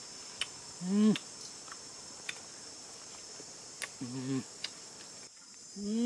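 Steady high-pitched insect chorus in dry scrub, with scattered faint clicks. Over it come three short hums from a person's voice: a rising-then-falling one about a second in (the loudest), a lower one around four seconds, and another starting near the end.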